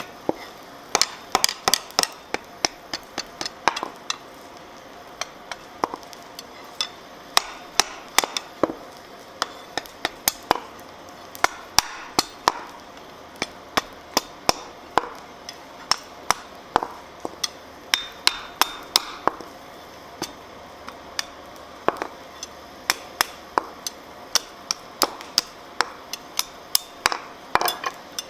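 Wooden mallet striking hot steel on an anvil while a spoon is forged: many sharp blows in uneven runs with short pauses, over a steady low hiss.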